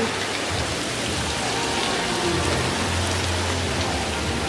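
Small fountain jets spraying and splashing steadily into a shallow pool: a constant hiss of falling water.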